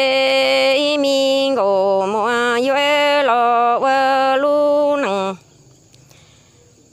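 Hmong kwv txhiaj sung poetry: one voice holds a long note, then steps through several held notes with short glides between them. The singing breaks off about five seconds in, leaving a quiet pause.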